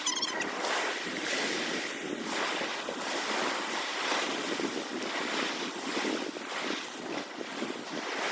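Sea water washing and sloshing in uneven swells, with wind rushing on the microphone.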